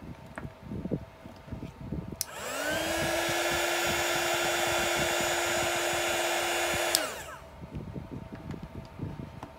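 Handheld heat gun switched on with a click, its fan spinning up to a steady hum and rush of air, blowing over wet epoxy resin for about four and a half seconds, then clicked off and winding down.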